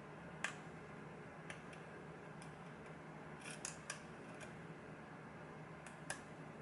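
Faint, scattered small clicks of a lock pick working the pins inside a pin-tumbler lock cylinder, a single tick here and there with a quick cluster a little past halfway, over a steady low hum.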